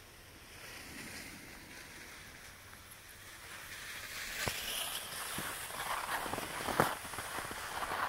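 Skis sliding and scraping over snow, quiet at first and growing louder from about halfway through, with a few sharp knocks.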